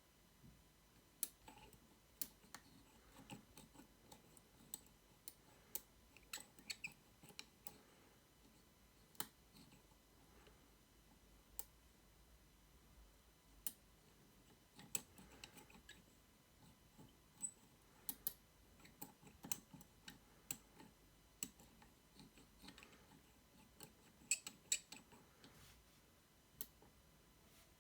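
Small, sharp metal clicks and ticks of a lock pick tool being worked inside a cylinder lock, coming irregularly, a few at a time with gaps between them.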